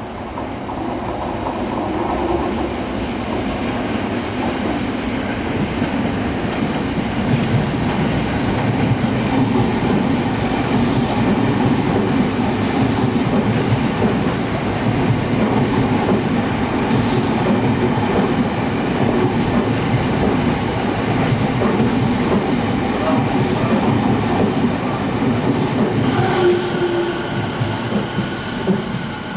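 Rinkai Line 70-000 series electric train running. The running noise builds over the first few seconds and then holds steady. Near the end, several steady whining tones from the IGBT VVVF inverter and traction motors come in.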